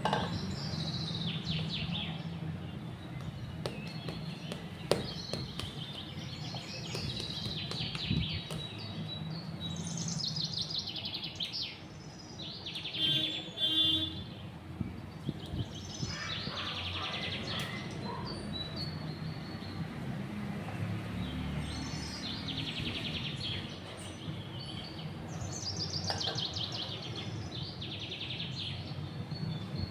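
Small birds chirping in repeated bursts of quick high notes every few seconds, over a steady low hum, with a few faint knocks.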